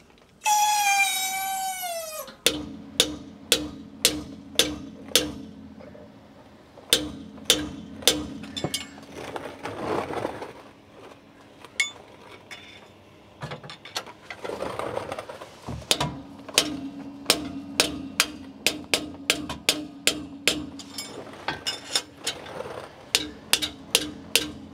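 Hammer blows on steel, many in runs of about two a second, each leaving a metallic ring, as the old pinion bearing races are driven out of a GM differential housing with a punch. A short falling squeal sounds right at the start.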